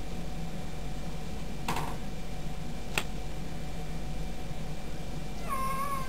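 A domestic cat gives one short meow, falling slightly in pitch, near the end. Before it there is only a steady low hum and a few faint clicks.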